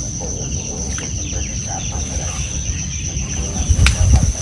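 Insects keeping up a steady, high-pitched chorus, with a sharp click and a few low thumps near the end.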